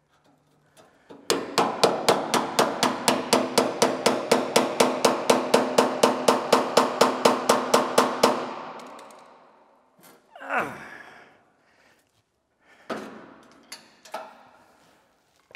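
Rapid metal-on-metal hammering at a rusted bolt on a welder's sheet-steel case, about five strikes a second for some seven seconds, the case ringing under the blows. A short scrape and a few lighter knocks follow near the end.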